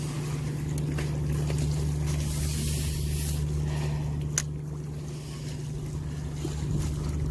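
Steady low engine hum with a single sharp click about four and a half seconds in.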